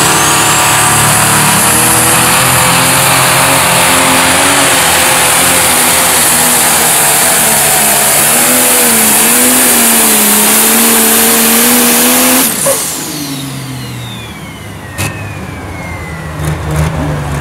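Pro stock pulling tractor's turbocharged diesel engine running flat out under load as it drags the sled, its pitch wavering slightly. About twelve seconds in the engine is suddenly cut and a high whine falls away as it winds down, with a sharp knock a couple of seconds later.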